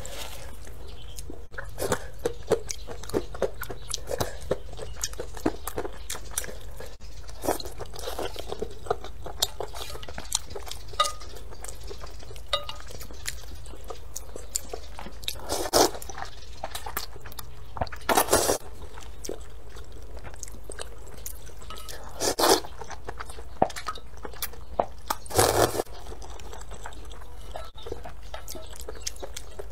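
Close-miked eating of spicy rice noodles: chewing with many small wet clicks, and four longer, louder slurps of noodles in the second half.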